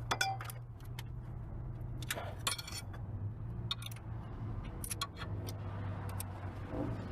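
Scattered metallic clinks and clicks of a hand wrench working on a stuck fastener on a car, over a steady low hum.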